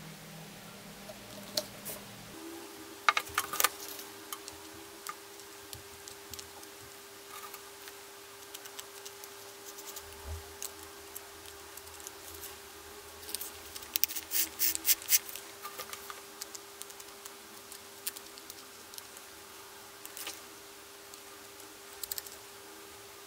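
Small sharp clicks and taps of a grease stick and fingers working around the gears and plastic housing of an opened electric drill while it is greased by hand, with quick runs of clicks about 3 s in and again in the middle. A faint steady hum sits underneath from about 2 s in.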